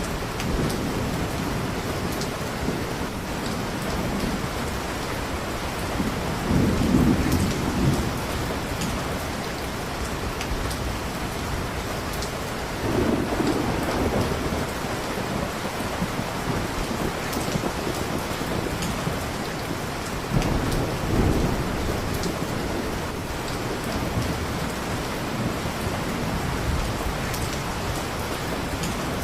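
Steady heavy rain, with low thunder rumbles swelling up three times, about a quarter, half and two-thirds of the way through.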